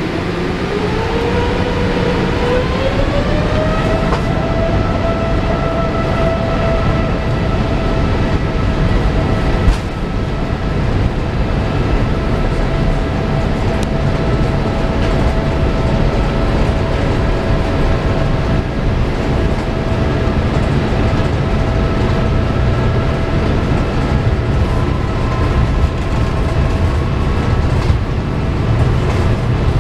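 Boeing 787-8's GEnx-1B engines heard from inside the cabin, spooling up with a rising whine over the first few seconds and then holding a steady high thrust, typical of the start of a takeoff roll. Under it, a heavy rumble of the landing gear rolling over the pavement, with one sharp bump about ten seconds in.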